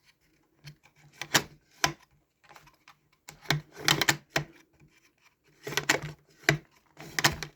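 The ICS MGL airsoft grenade launcher's revolving drum being wound up by hand: irregular clusters of sharp mechanical clicks as the drum is turned against its spring.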